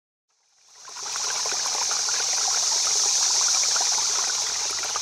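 Running water, like a stream babbling or trickling, fading in over the first second and then running steadily.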